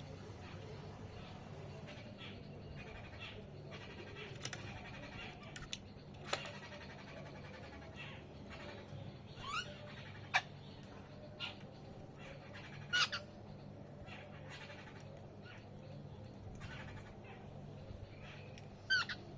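Birds calling now and then: short sharp chirps and a few quick rising notes, scattered over a steady low hum.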